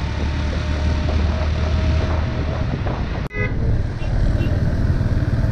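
Motorcycle engine running under way, with road and wind noise on a camera mounted on the bike. The sound drops out for an instant a little past three seconds, around a short vehicle horn toot.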